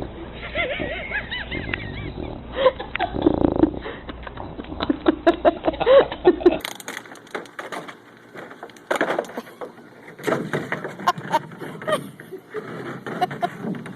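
Puppies whining and yipping in short, high calls, mixed with scattered knocks and clatter.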